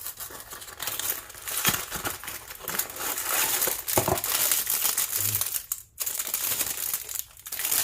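Packaging of a frozen microwave ready meal being opened and handled, with plastic and card rustling and crackling, and a brief pause about six seconds in.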